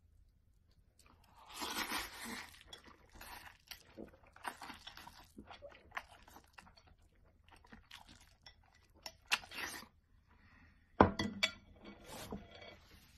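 Close-up eating sounds: instant noodles slurped and chewed in irregular noisy bursts, the loudest coming about eleven seconds in.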